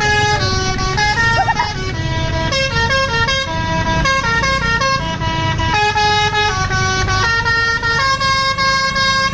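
Telolet-style musical bus horn (basuri) playing a melody of held notes, each about a quarter to half a second, stepping up and down in pitch without pause, over the low rumble of the bus engine.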